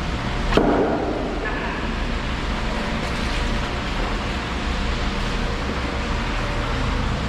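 Steady rushing noise with a low hum, echoing in a concrete creek tunnel, with a single sharp knock about half a second in.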